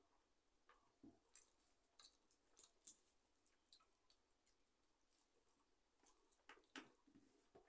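Faint sounds of eating rice by hand from a steel plate: fingers squishing and mixing the rice against the metal, with scattered small clicks and smacks.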